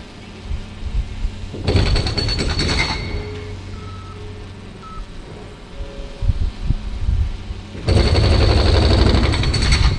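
Demolition machinery working at the base of a concrete stave silo, in two loud stretches of rapid rattling, about two seconds in and again near the end, with a few short beeps between.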